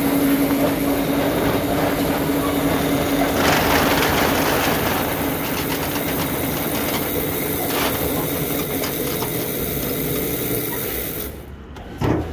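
Steady mechanical running noise of warehouse machinery, with a low hum at first, cutting off sharply near the end, followed by a couple of knocks.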